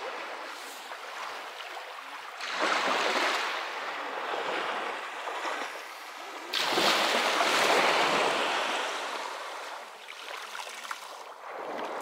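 Small Baltic Sea waves breaking and washing up a pebbly beach, with two louder surges of surf, about two and a half seconds in and about six and a half seconds in.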